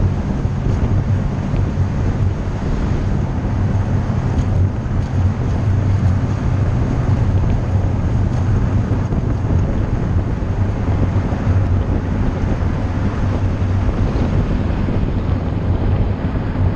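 Steady wind noise on the microphone and road noise from a vehicle travelling at freeway speed, under a constant low hum.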